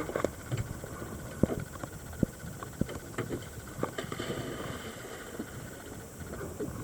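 Underwater ambience: faint, irregular clicks and knocks over a low steady hiss.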